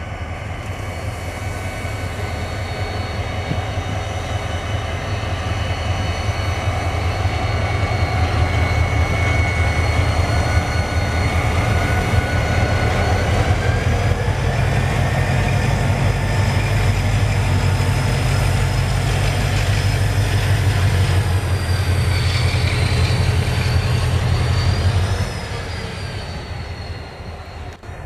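EMD diesel-electric locomotives passing close by under power: a deep engine rumble that builds as they approach and drops off sharply about 25 seconds in as they go past, with a high steady whine over it that wavers near the end.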